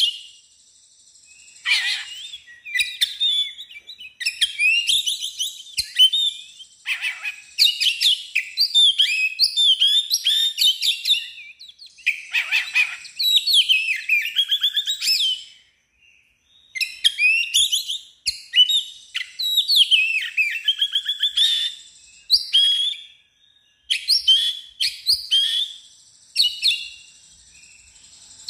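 Oriental magpie-robin in full song: varied whistled phrases, chirps and rapid trills delivered in bursts of several seconds, with short pauses between them.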